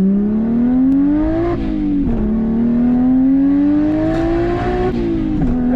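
Modified BMW 135i's turbocharged straight-six accelerating hard, its pitch climbing steadily through the gears. It drops at upshifts about a second and a half in and again near the end.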